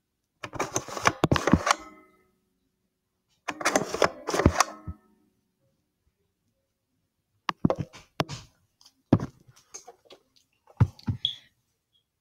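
View-Master stereo viewer handled and its advance lever worked, giving two quick runs of mechanical clicking and clacking as the reel turns to a new scene. These are followed by a few scattered plastic clicks and knocks.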